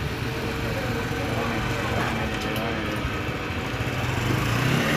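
Small commuter motorcycle's engine running at low speed as the bike rides slowly up, getting louder near the end as it comes close.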